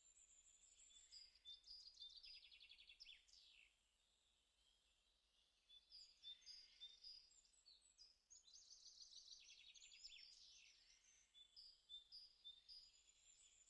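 Faint birdsong: high chirps and fast trills in two spells of song, with a short lull about four seconds in.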